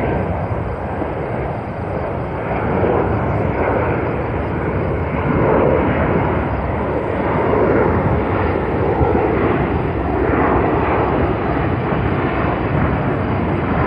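Jet engine noise of an Airbus A330-200 airliner rolling out on the runway just after touchdown: a steady rush of noise that grows louder a few seconds in and stays strong.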